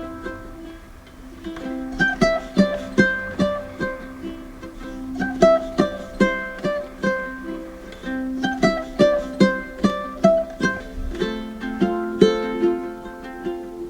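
Background music of plucked ukulele notes in a light, steady melody.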